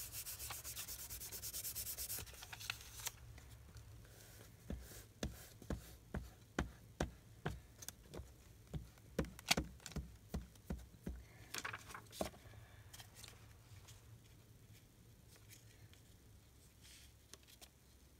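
Glue stick rubbed quickly back and forth over paper, then a run of separate rubbing strokes, about two a second, as a glued paper scrap is pressed and smoothed down by hand.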